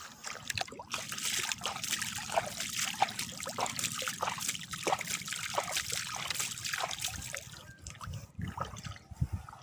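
A hooked mangrove snapper thrashing at the water's surface as it is reeled in, a run of rapid splashing that dies down near the end.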